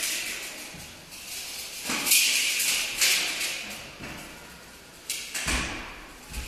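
Large steel ball rolling across the floor with a gritty, scraping rumble, then hitting the broken plasterboard wall with a heavy thud about five and a half seconds in.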